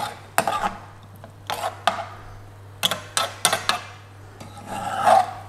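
Metal spoon scraping and knocking against a metal frying pan while stirring a thick curry sauce with chicken pieces, in irregular scrapes and taps.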